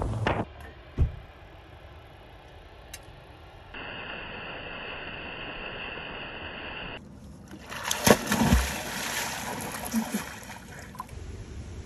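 Water sounds: a small waterfall pouring steadily over rocks, then loud splashing in a lake about eight seconds in.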